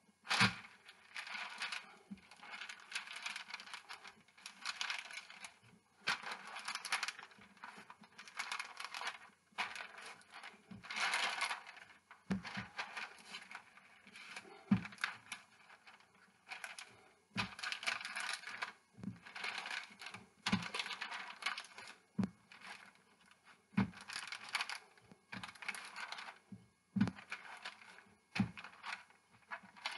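Parchment paper crinkling and rustling in repeated bursts as shortcrust dough is rolled out beneath it with a drinking glass and pressed flat by hand, with soft thumps on the counter between the strokes.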